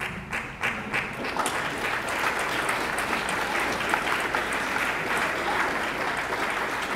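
Audience applauding: a few separate claps at first, filling out within about a second into steady applause from a crowd.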